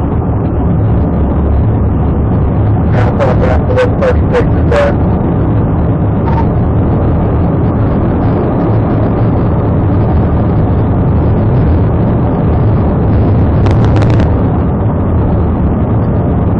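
Police car driving at speed in pursuit, its engine and road noise a loud, steady rumble inside the cabin. A quick run of about six sharp clicks comes a few seconds in, and a short cluster of clicks comes near the end.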